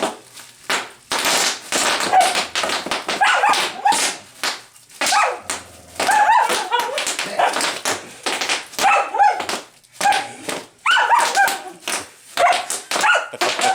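A dog barking and yipping again and again in short calls, over sharp crackling and popping of plastic bubble wrap.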